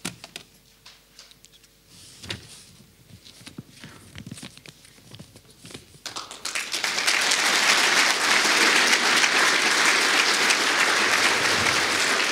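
Audience applauding, starting about halfway through and holding steady and loud to the end. Before the applause there are only a few scattered soft knocks.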